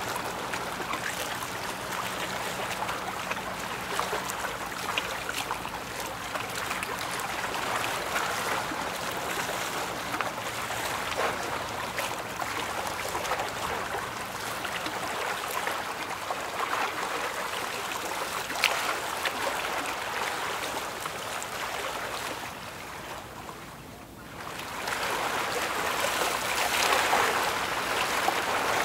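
Water rushing and hissing as a ship's bow wave breaks along the hull. It is a steady wash that fades briefly about three-quarters of the way through, then swells back.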